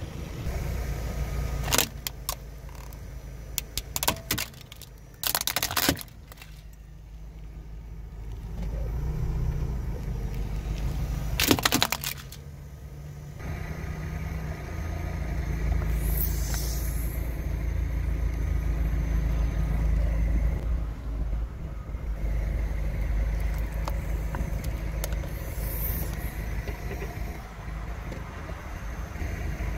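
Car tyre rolling slowly over small objects on asphalt, with a handful of sharp cracks and pops in the first dozen seconds as things are crushed under it. From about halfway, the car's engine and tyre give a steady low rumble.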